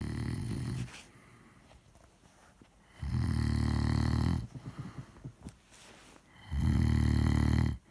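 A drunk man snoring heavily: loud, low buzzing snores on the in-breath, one ending just under a second in and two more about three and a half seconds apart, each lasting about a second and a half, with quiet breathing between.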